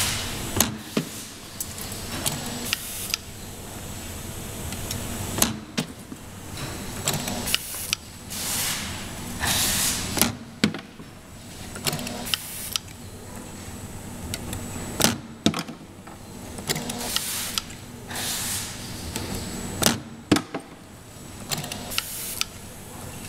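CNC spring-forming machine making torsion springs, its motors whirring in swells and sharp metallic clicks and snaps repeating as the wire is formed and cut.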